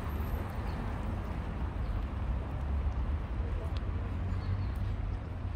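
Outdoor city street ambience: a steady low rumble of traffic with faint voices in the background.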